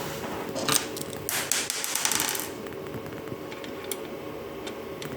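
A small screw and metal bracket parts handled by hand, giving scattered clicks and a quick run of rapid rattling ticks about a second and a half in, over a faint steady hum.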